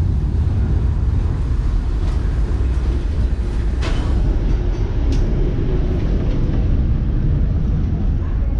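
Vintage ATM tram running along the street, heard from inside the passenger car as a steady low rumble. A brief clack comes about four seconds in and a short high squeak about a second later.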